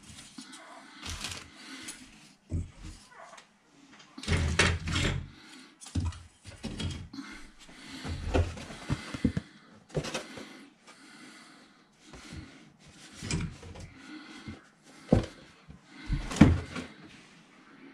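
White plastic model-kit sprues clattering and rattling as they are handled and set down on a workbench: irregular light knocks and rustles, with a few sharper taps.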